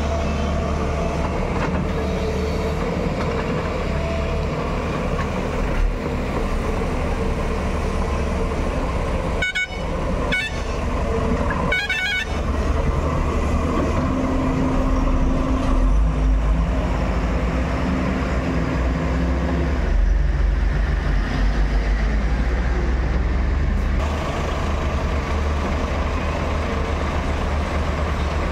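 JCB 215LC tracked excavator's diesel engine running steadily as it digs, getting somewhat louder from about halfway in while the arm and bucket work. A few short, sharp high-pitched sounds come about a third of the way in.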